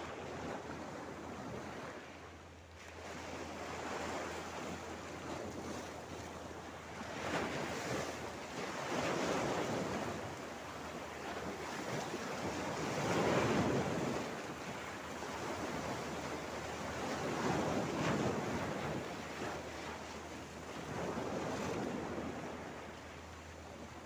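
Small Mediterranean Sea waves breaking and washing over a flat rock shelf, surging in every few seconds with the loudest break about halfway through.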